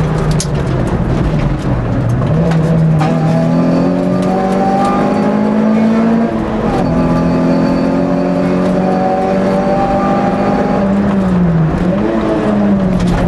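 Racing car engine heard from inside the cabin, driven hard under load. Its pitch climbs steadily, drops sharply at gear changes about 1.5 s and 6 s in, and dips and rises several times near the end as the driver lifts and reapplies the throttle.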